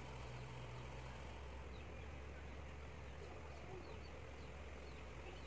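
Faint room tone: a steady low hum with scattered short, high chirps from small birds.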